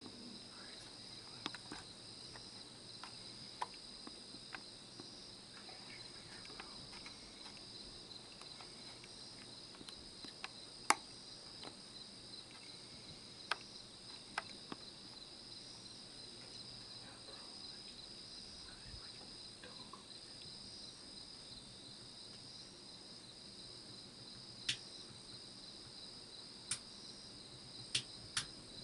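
A steady, high-pitched chorus of night insects, crickets trilling without a break. A few sharp clicks are scattered through, the loudest about eleven seconds in.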